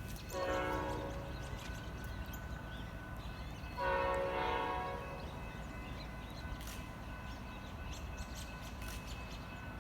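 Diesel locomotive air horn sounding two blasts, the first just after the start and the second, louder, about four seconds in, each a chord of steady tones, from the Metra EMD F40PM-2 commuter train as it approaches the station. A low steady rumble runs underneath.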